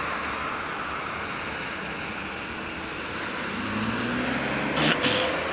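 A patrol car driving slowly past over steady road noise, its engine note rising from about three and a half seconds in. A brief loud noise near the end.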